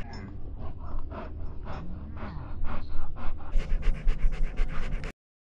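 German Shepherd panting right at the microphone of the camera on its harness, quick rhythmic breaths at about three or four a second. The sound cuts off abruptly a little after five seconds in.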